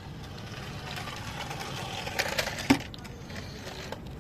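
Small electric motor of a toy RC car whirring steadily, with a sharp knock about two-thirds of the way in.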